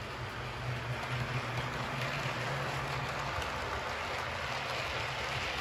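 Model train running past on the layout: a steady hum from the Heljan Class 25 model locomotive's motor, which fades about three seconds in, over a constant rushing rattle of the model coaches' wheels on the track.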